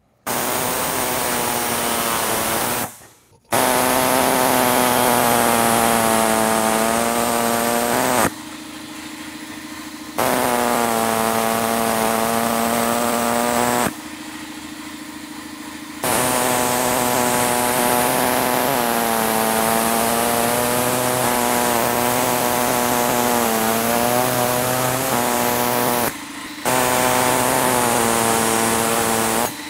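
Reciprocating saw cutting through the plastic of a truck's factory grille in a string of cuts several seconds long. Its motor pitch wavers and dips under load. Between cuts it runs quieter at a steadier pitch, and it stops briefly a few seconds in.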